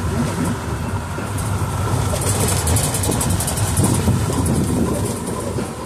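An open jeep under way: its engine running steadily with road noise, and a stretch of light rattling in the middle.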